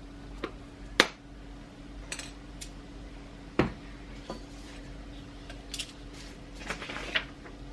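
Kitchen utensils and containers clinking and knocking while dry baking ingredients are measured out: scattered light taps, with a sharp knock about a second in the loudest and a quick cluster of clinks near the end.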